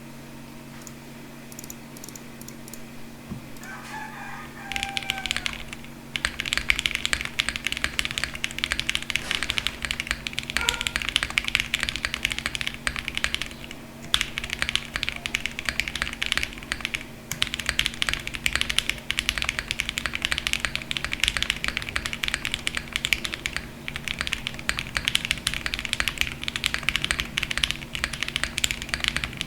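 Typing on an MW65 mechanical keyboard with Boba tactile stems in Gateron milky-top housings, lubed, on a polycarbonate plate in a tape-modded, foam-filled case, heard through a condenser mic. Fast, steady keystrokes start about five seconds in, with a couple of short pauses.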